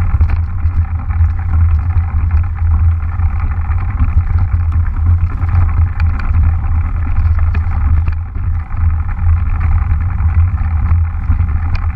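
Mountain bike rolling along a leaf-covered forest trail, heard from the bike-mounted camera: steady low wind and riding rumble on the microphone, with tyre noise over the leaves and scattered small clicks and rattles from the bike.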